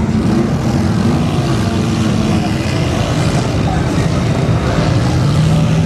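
Off-road side-by-side engine running hard as the vehicle ploughs through deep mud and water, with a steady engine note near the end.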